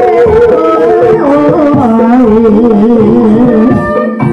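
Live gamelan music for the ebeg (kuda kepang) horse dance: hand drums and gamelan instruments under a held, wavering melody line with vibrato. The sound briefly dips just after four seconds.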